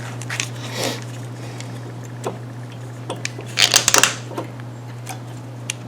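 Hand tools being handled on the mower's fuel line: scattered small clicks and a short run of metallic clinks and rattles a little under four seconds in, over a steady low hum.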